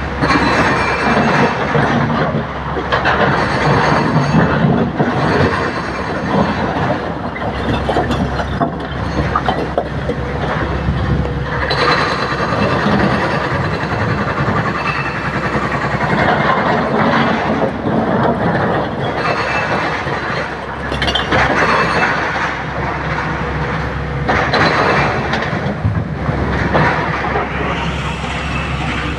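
SANY crawler excavator working a rock pile: its diesel engine runs under load with a steady low hum, while broken stone clatters and grinds in the steel bucket and tumbles into the steel body of a dump truck. The clatter swells and fades over several loading and digging passes.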